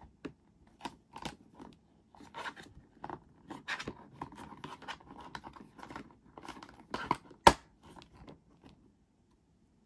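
Hard plastic toy parts being handled and pressed together: a run of light taps, clicks and scrapes, with one sharp snap about seven and a half seconds in as the panel is pushed into place.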